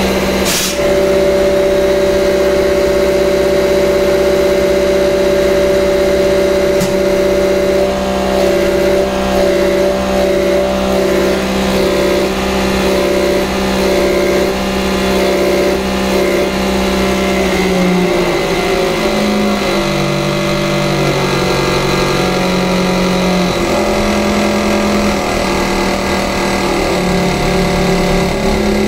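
A diesel injection pump test bench running: its electric drive spins a Bosch fuel injection pump under test, giving a loud, steady mechanical hum of several tones. A sharp knock comes just after the start. About two-thirds of the way through, the hum drops in pitch and steps up and down as the speed changes.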